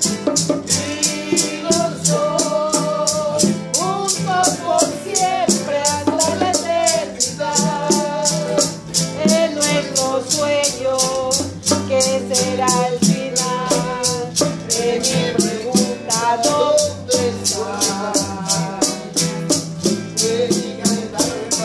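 Two acoustic guitars strumming chords under a man's singing voice, with maracas shaken in a steady quick rhythm, about four shakes a second.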